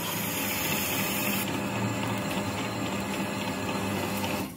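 Metal lathe running, a large spiral-fluted drill boring into a metal disc held in a four-jaw chuck: a steady machining noise with a low hum under it.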